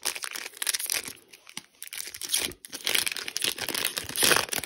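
Crinkling foil booster-pack wrapper and rustling trading cards being handled, with soft clicks and rustles that swell twice in the second half.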